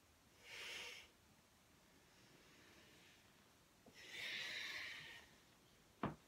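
A person breathing audibly during slow yoga movement: a short breath about half a second in and a longer, louder one around four seconds. A single sharp thump near the end.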